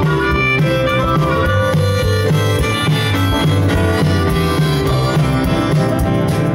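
Harmonica played into a vocal microphone, holding melodic notes over live band accompaniment with acoustic guitar.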